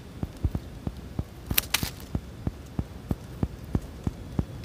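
Hand scissors snipping through a cucumber leaf stalk, one crisp cut about a second and a half in, as the leaves are thinned out. Under it runs a steady soft ticking, about four clicks a second.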